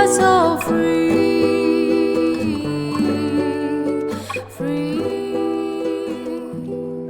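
Background music: plucked-guitar accompaniment with held notes after the singing ends, fading out toward the end.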